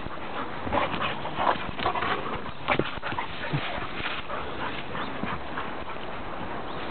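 Two yellow Labrador retrievers play-fighting: a run of short, irregular dog sounds, busiest in the first three seconds and sparser after.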